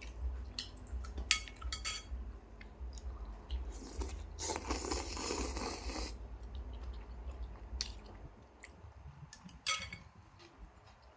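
A person eating noodle soup close to the microphone: chewing and smacking with scattered small clicks, and about four seconds in, a noisy slurp lasting a second and a half.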